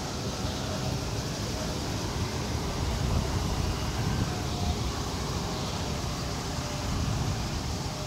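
Steady low rumble of road traffic at a busy intersection, with the high twittering of a large flock of swallows overhead blended into it.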